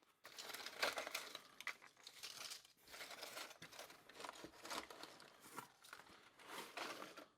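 Packing peanuts and packaging rustling and crinkling in irregular bursts as hands dig through a shipping box, stopping abruptly at the end.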